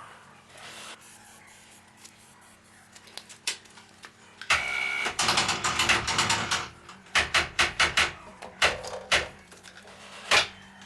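Metal tools and engine parts clicking and clattering by hand: a dense rattle of clicks about four and a half seconds in, then separate sharp clicks in small groups.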